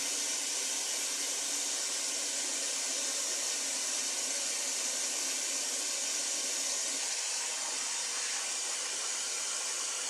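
Steady stream of running water while rice is being rinsed, an even hiss with no breaks.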